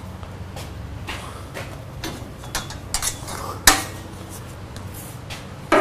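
Metal clinking and knocking off to one side as tools are handled, a string of sharp clicks with one louder knock about three and a half seconds in, over a steady low hum.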